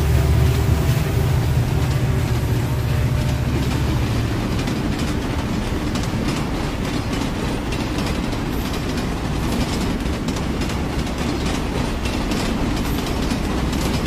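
Passenger train crossing a rail bridge: a deep low rumble for the first four seconds or so, then the steady clatter of the coaches' wheels with quick rail clicks, fading at the very end.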